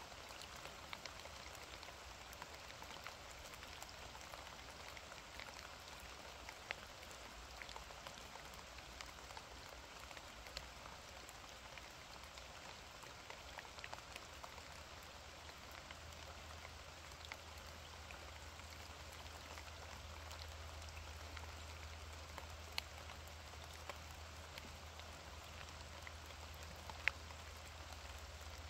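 Steady rain falling, a soft hiss with single drops ticking sharply here and there. A low rumble comes in underneath about halfway through.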